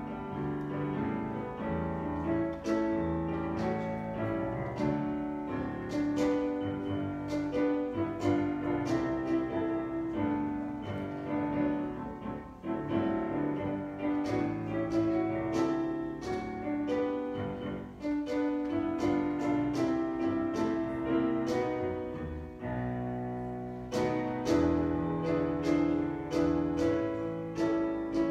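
Solo piano music: slow, sustained chords over low bass notes, the chords changing every second or so.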